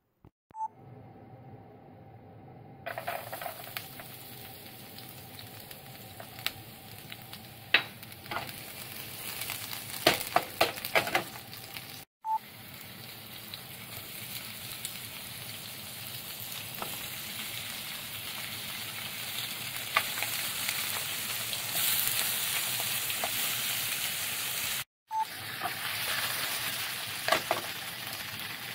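Floured filefish pieces and sliced garlic sizzling in hot oil in a nonstick frying pan, the frying starting about three seconds in and growing louder near the end. A few sharp clicks and taps come in quick succession around the middle as pieces go into the pan.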